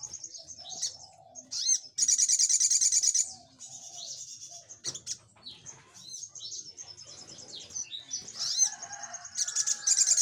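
Male olive-backed sunbird singing: high, thin chirps and sharp call notes, broken by two loud, fast trills, the rapid 'nembak' bursts that bird-keepers prize. One comes about two seconds in and lasts about a second; the other comes near the end.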